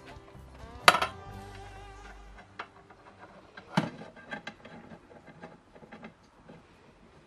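Metal plumbing fittings clinking and knocking together as they are handled and screwed on by hand. A sharp ringing clink comes about a second in, and a smaller knock comes near four seconds, followed by a few light ticks.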